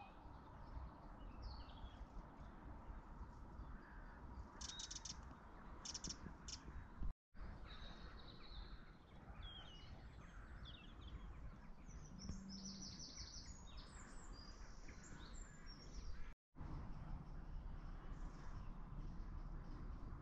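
Faint dawn birdsong: scattered chirps and calls from several birds over a low background rumble, with a few harsh calls about five to six seconds in. The sound drops out briefly twice.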